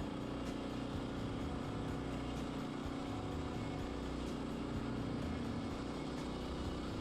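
Gasoline engine of a Woodland Mills HM122 portable band sawmill running steadily, with an even, unchanging hum.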